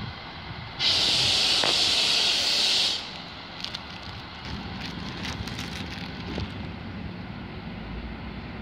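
Sharp hiss of compressed air being vented from a train's air system, starting suddenly about a second in and cutting off about two seconds later, over the low running of a diesel railcar pulling away. A few faint clicks follow the hiss.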